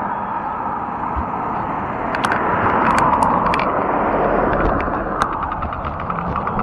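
Fat-tire e-bike rolling on asphalt: a steady rush of tyre noise and wind on the bike-mounted camera, with scattered sharp clicks and a run of small ticks near the end.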